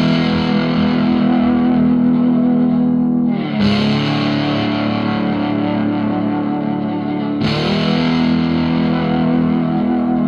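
Background rock music of sustained, distorted electric guitar chords, changing chord twice, about every four seconds.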